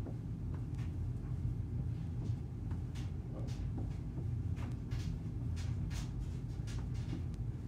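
Footsteps stepping up and down carpeted stairs in a steady exercise rhythm: a run of short, soft knocks and taps, about one or two a second, over a low steady hum.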